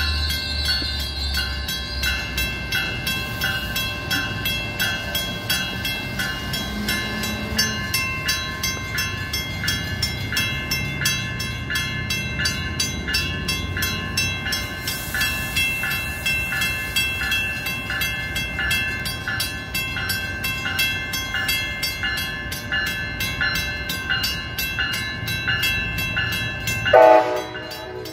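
Grade-crossing warning bell ringing steadily at about two strokes a second, over the low rumble of a Brightline train with a Siemens Charger locomotive creeping through the crossing. Near the end a short, loud tone slides down in pitch.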